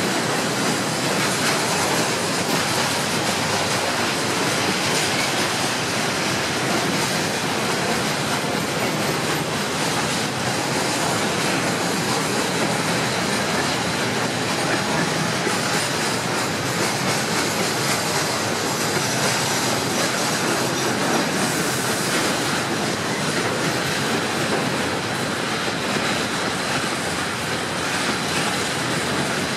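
Freight train of tank wagons rolling past at a steady pace, its wheels making a continuous rumble on the rails with a thin, steady high squeal.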